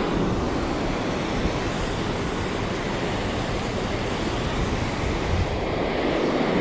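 Steady rushing of fast river current, with wind buffeting the microphone.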